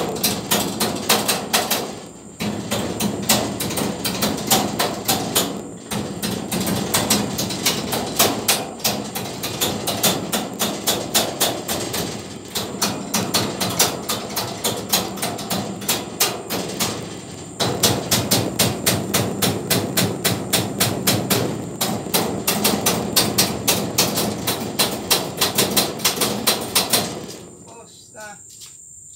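Rapid hand-hammer blows, about five a second, in long runs broken by a few short pauses. The hammering stops about two seconds before the end.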